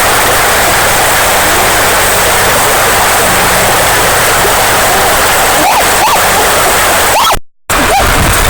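River water rushing steadily, with a brief cut to silence about seven and a half seconds in and a few short pitched sounds around the cut.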